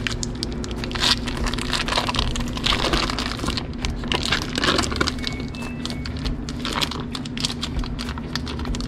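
Foil wrapper of a block of cream cheese crinkling and crackling as it is peeled off and handled, a dense, irregular run of small crackles.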